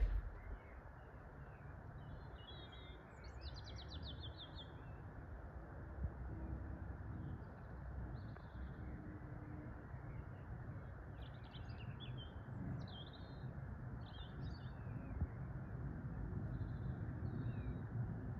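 Small birds chirping in short bursts, in two spells, over a steady low outdoor rumble. A short click sounds right at the start.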